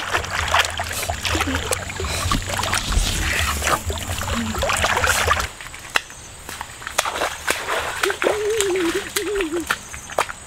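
Water splashing and sloshing as a boy moves through a muddy river, full of sharp splashes, cutting off suddenly about five and a half seconds in. After that come quieter scattered ticks and rustles and a brief wavering vocal sound.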